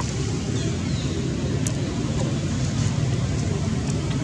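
Steady low background rumble, with a few faint high chirps and one sharp click about one and a half seconds in.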